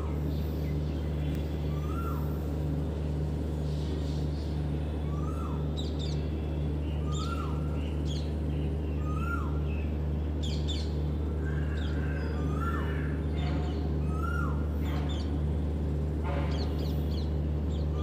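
Small birds chirping, with one short call that rises and falls repeated every second or two and higher twittering between, over a steady low hum.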